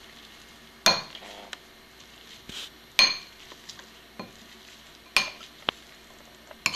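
Metal potato masher mashing boiled chickpeas in a glass bowl, clinking sharply against the glass four times, about every two seconds, with softer clicks between strokes.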